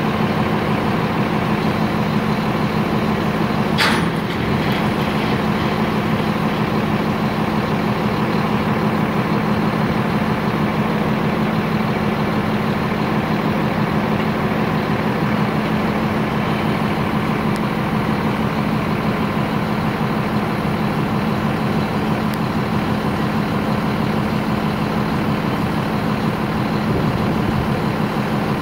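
Heavy diesel engines of truck-mounted cranes and trucks running steadily with a low, even drone, and a brief sharp sound about four seconds in.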